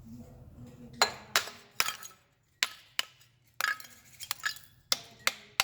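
About a dozen sharp, irregular clinking strikes, a hammer knocking on a freshly cast bronze piece to break off the remaining hard mold shell. They start about a second in.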